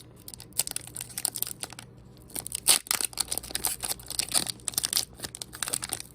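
Foil Pokémon booster pack wrapper being handled and torn open, a crinkling, crackling rustle that grows dense about two seconds in.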